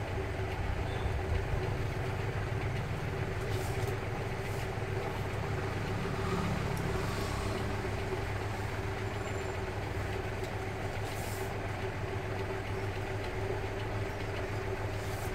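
Steady low background rumble with a constant hum, like engine or machinery noise, and a few faint clicks from a plastic appliance body being handled.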